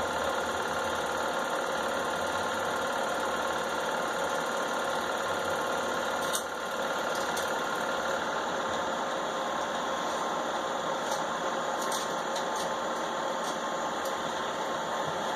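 Home-movie film projector running steadily, with a few faint clicks.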